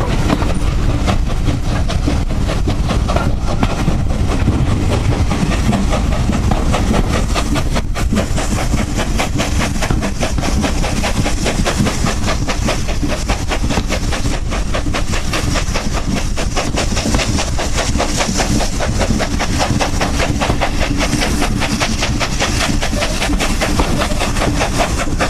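GWR Prairie tank steam locomotive 5552 working hard up a steep gradient, with rapid, even exhaust beats over the rumble of the train on the rails.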